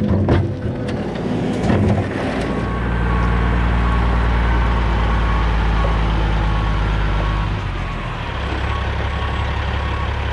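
Diesel skid steer loader engine running under load, with a few knocks and clattering in the first two seconds. The engine then holds a steady hum and drops to a lower speed about eight seconds in. A faint, evenly repeating beep runs through the middle.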